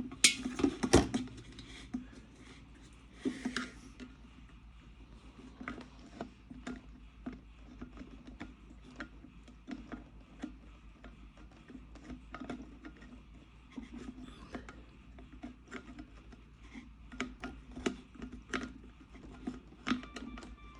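Clicks, taps and scraping from hands and a tool working at the plastic housing of an electric kettle, with a few louder knocks about a second in.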